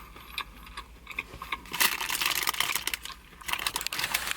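Close-up chewing of a cheese-and-bacon-topped boneless chicken bite: wet, crackly mouth clicks, densest for a couple of seconds around the middle.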